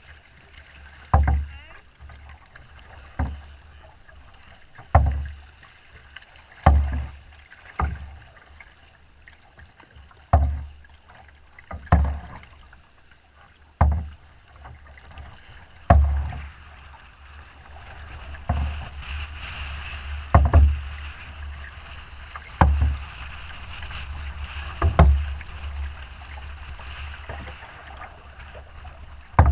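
Choppy lake water slapping against a canoe's hull in dull thumps every second or two, over low wind rumble on the microphone. A hiss of rushing water swells in the second half.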